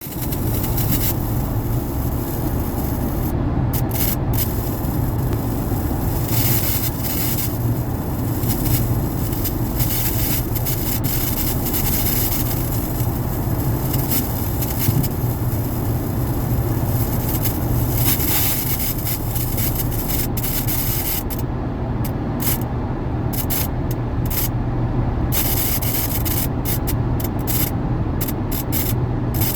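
Loud static hiss over a low hum from a 2012 Lincoln MKZ Hybrid's audio-system speakers, running steadily with a flickering upper edge while the audio is switched off: a fault in the car's sound system.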